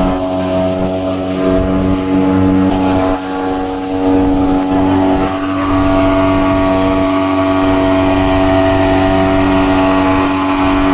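Speedboat engine running steadily at speed, holding one even pitch, with the hiss of water rushing along the hull and wake. A lower part of the engine note drops away about three seconds in.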